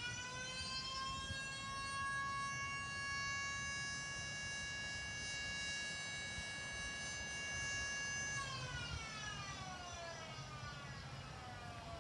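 Federal Signal Model 2 electromechanical siren finishing its wind-up, then holding one steady tone for about eight seconds before winding down, its pitch falling steadily through the last few seconds.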